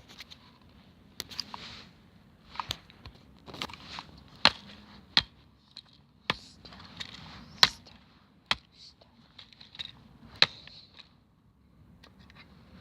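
Stanley knife stabbing a plastic TV remote's casing: about ten sharp, irregular knocks, with scraping and scratching of the plastic between them.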